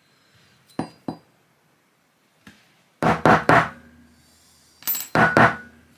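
Sharp metallic clinks from a steel Carcano rifle bolt and a thin metal rod being handled and knocked together: two light clicks about a second in, then two quick runs of three clinks, each with a short ring, about three and five seconds in.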